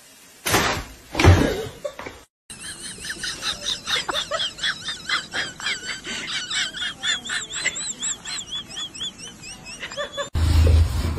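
A person's high-pitched laughter in quick repeated bursts, after two loud sudden noises about a second in.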